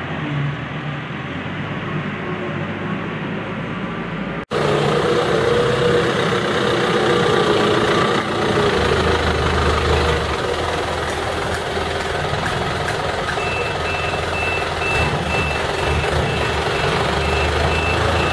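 Eicher light truck's diesel engine running as the truck manoeuvres. About three-quarters of the way in its reversing alarm starts, a steady series of short, evenly spaced beeps at one pitch.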